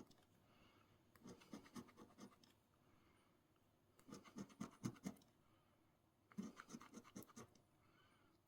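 Scratching the coating off an instant lottery scratch ticket, in three short bursts of quick scratching strokes with pauses between.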